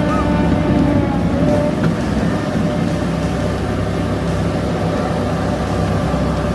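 Skid steer loader's engine running steadily, with a few thin steady tones over the engine note.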